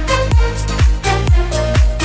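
Background electronic dance music with a steady kick drum, about two beats a second.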